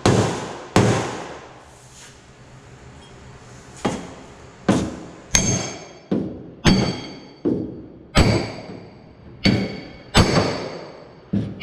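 Hammer blows on the steel inner shell of a Chevy Traverse door, knocking damaged metal back into shape. There are two blows, a pause of about two seconds, then a steady run of about one and a half blows a second. The later blows ring with a bright metallic ring.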